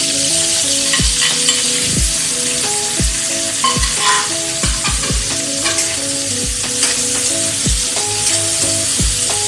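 Garlic, onion, ginger and chopped tomatoes sizzling in hot oil in a steel wok as they are sautéed and stirred with a spatula, a steady frying hiss. Background music with a steady beat plays underneath.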